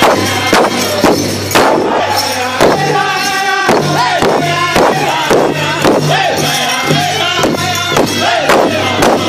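Powwow drum group singing a crow hop song together, several voices rising and falling over a large hide-covered powwow drum struck in unison with padded sticks at a steady, fast beat.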